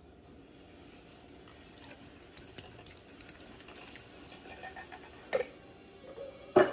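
Canned diced tomatoes with their juice pouring and plopping into chicken broth in a slow cooker crock, a run of small wet clicks and splats. Two sharper knocks come near the end, the second the louder.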